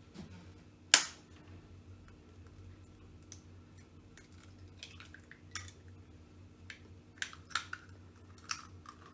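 Metal spoon tapping a raw egg's shell to crack it open: a sharp click about a second in, then a run of lighter, scattered taps and clicks.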